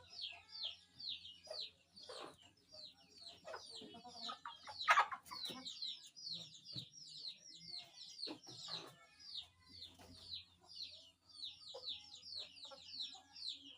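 A flock of chickens calling: a steady run of short, high, falling peeps, several a second, with lower clucks now and then, the loudest about five seconds in.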